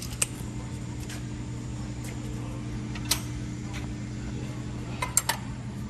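Steady low machine hum with a few light, sharp metallic clicks and taps from handling tools on the resaw's steel frame, a close pair of them about five seconds in.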